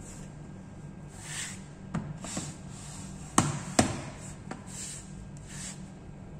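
Several sharp plastic clicks and knocks, the loudest two a little before halfway, with brief rustles in between, as the Dell Inspiron 11 3180 laptop is closed up and handled after its RAM upgrade.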